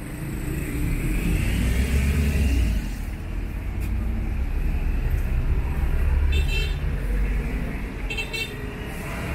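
Road traffic rumbling, with two short vehicle horn toots, one about six and a half seconds in and one about eight seconds in.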